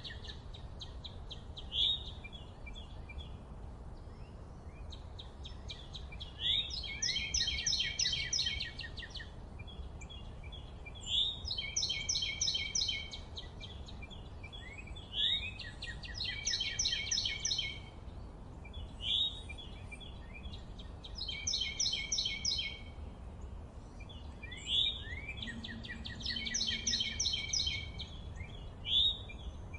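A songbird singing a repeated song: a short, sharp slurred note followed by a rapid trill of high notes lasting about two seconds, repeated every four to five seconds. A steady low rumble runs underneath.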